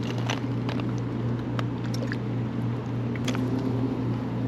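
A steady low mechanical hum, like a motor running, with a few light clicks scattered through it.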